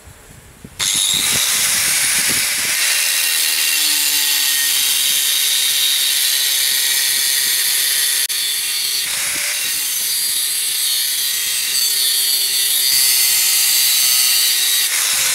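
A 4-inch Bosch angle grinder with an abrasive disc cutting steel plate. It starts abruptly about a second in and then runs steadily as a high, hissing whine.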